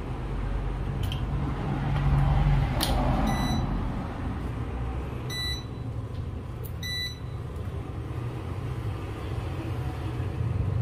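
Induction cooktop's touch control panel giving three short electronic beeps as its buttons are pressed, over a steady low hum.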